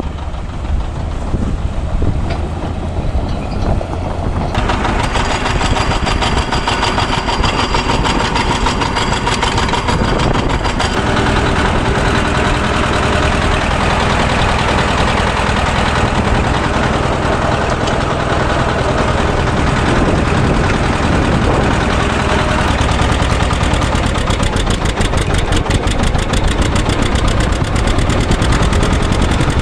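A vehicle engine running steadily, its sound changing abruptly about five seconds in and again about eleven seconds in.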